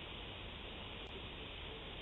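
Steady low hiss with no distinct sounds in it, the background noise of a doorbell security camera's microphone.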